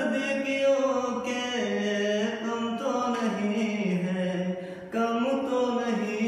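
A man singing a Hindi film song without accompaniment, in long drawn-out notes that glide in pitch, with a short pause for breath about five seconds in.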